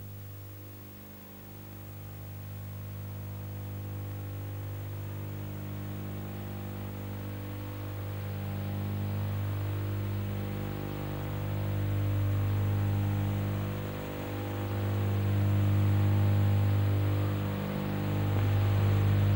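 Deep electrical hum from the drive machinery of a rotary ore-car dumper as it turns the ore cars over. The hum holds steady in pitch, grows louder, and dips briefly a couple of times.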